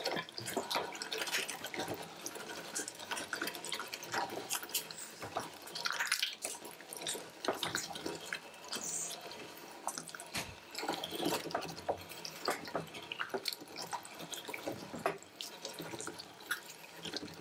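Hand-cranked Tre Spade No. 22 meat grinder mincing a large chunk of raw meat: a continual run of irregular squishing and clicking as the auger forces the meat through the blade and plate.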